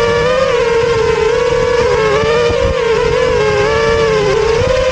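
FPV quadcopter's electric motors and propellers whining steadily as it flies low, the pitch wavering gently up and down with throttle, over a low buffeting rumble on the onboard microphone.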